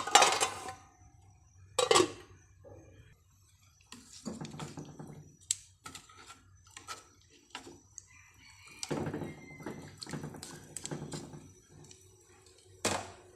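Kitchen dishes and utensils clattering and clinking while food is being prepared, in a string of separate knocks and scrapes, the loudest right at the start, about two seconds in and near the end.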